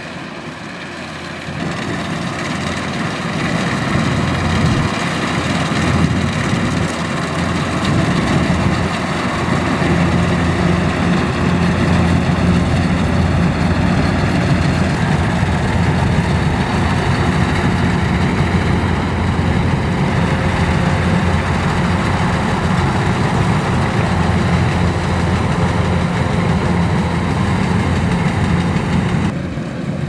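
Kubota DC-105X tracked rice combine harvester running while it cuts rice, its engine a loud, steady drone. It gets louder about two seconds in as the machine comes close, and drops suddenly near the end.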